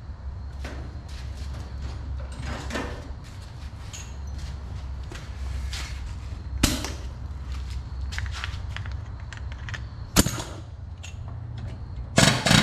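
Scattered clanks and knocks of shop tools and an air hose being handled, with two sharp bangs partway through, over a steady low hum. Near the end a pneumatic air hammer starts hammering rapidly on the steering knuckle to drive out the worn upper ball joint, the loudest sound.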